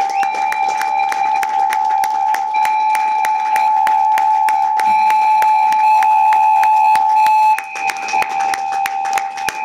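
A live band's steady, high-pitched electronic drone held throughout, with a fast, irregular clatter of sharp percussive hits over it. The hits thin out a little after about seven and a half seconds.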